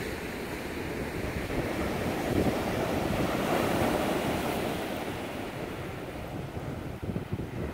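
Ocean surf breaking and washing up a sandy beach. The rush of the waves swells to its loudest a few seconds in, then eases off.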